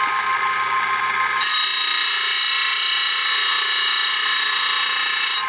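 Chainsaw-chain grinder running, then about a second and a half in its abrasive wheel bites into a cutter tooth with a loud, high grinding that holds steady for about four seconds and stops abruptly near the end. The tooth is being ground to the correct sharpening angle.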